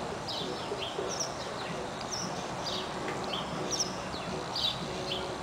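Small birds chirping over and over: short, high, falling chirps, often in pairs, about one to two a second.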